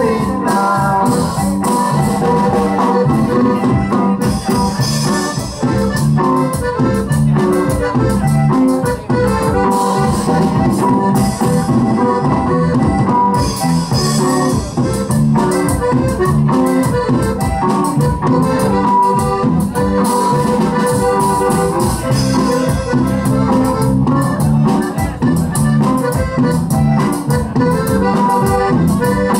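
A norteño band playing live, accordion to the fore over bass and drums with a steady dance beat, loud and echoing in a large hall.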